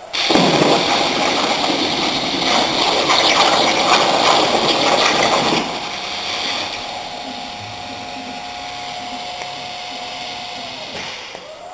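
CNC plasma cutter's torch hissing with air flow: a loud steady hiss that starts abruptly and runs for about five and a half seconds, then drops to a quieter hiss with a faint steady hum that slides down and fades shortly before the end.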